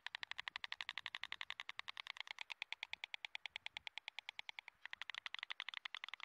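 White storks on the nest: a rapid, even series of short clicking calls, about a dozen a second, with a brief break just before five seconds in.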